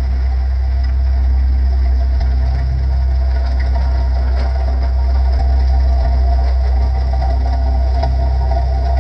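Skid steer engine running steadily while its Harley rake attachment works the gravel driveway, with a continuous low hum and a mid-pitched drone that grows slightly stronger as the machine comes closer.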